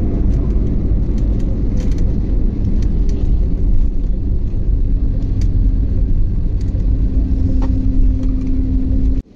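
Airbus A320-family jet rolling down the runway just after landing, heard from inside the cabin: a loud, steady low rumble of engines and wheels on the runway. A steady hum comes in about halfway, and the sound cuts off suddenly near the end.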